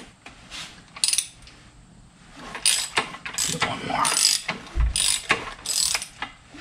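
Ratchet wrench clicking through a run of quick back-and-forth strokes from a little before halfway in, after a single click about a second in, with a brief dull knock near the end. The ratchet is turning the engine over by hand to bring the camshaft round for the next valve clearance check.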